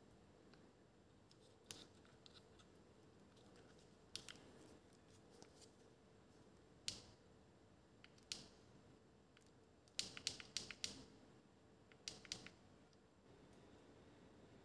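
Scattered sharp clicks and snips of small hand tools working on the parts of a handheld phone gimbal during a battery and board replacement. They come singly every few seconds, with a quick run of several about ten seconds in, over a faint steady hum.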